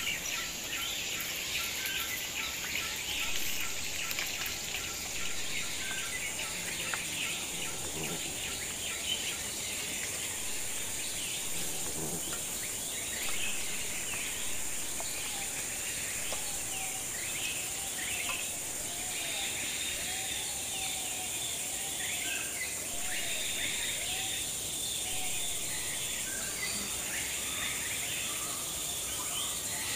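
Woodland birds chirping and calling over a steady high-pitched insect drone. A lower warbling bird call comes in about halfway through.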